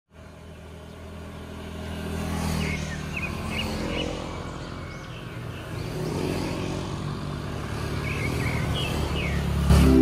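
Several motor scooters riding past one after another. The engine drone swells and fades as each goes by, and is loudest just before the end.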